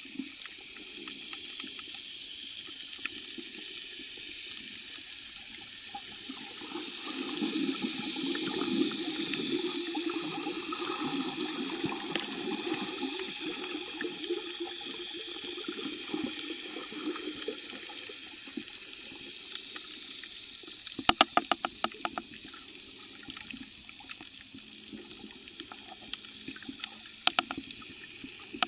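Underwater water noise picked up by a camera's microphone: a steady wash with scattered sharp clicks, and a quick run of clicks about three quarters of the way through.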